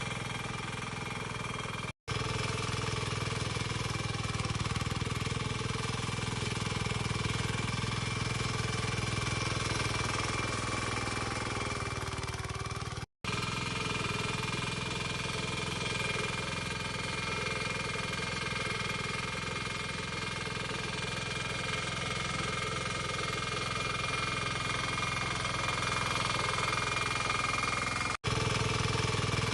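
Small engine of a remote-controlled power weeder running steadily, with three brief dropouts where separate clips are joined.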